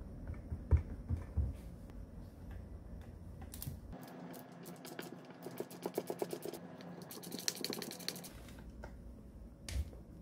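A screwdriver ratchet clicking in quick runs as screws are backed out of an angle grinder's housing, after a few dull knocks on a wooden workbench in the first seconds.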